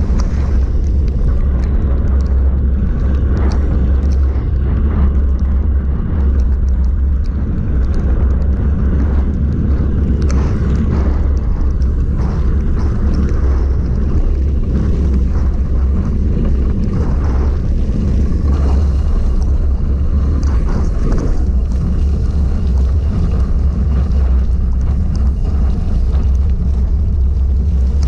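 Wind buffeting the microphone of a handlebar-mounted camera on a gravel bike moving at about 20 mph, a steady low rumble. Under it, the gravel bike's tyres hiss and crackle over a wet, gritty gravel path.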